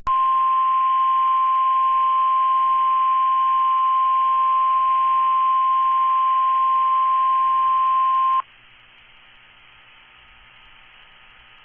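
NOAA Weather Radio 1050 Hz warning alarm tone, sounded for the weekly test: a single steady high tone held for about eight seconds that cuts off abruptly. Faint radio hiss follows.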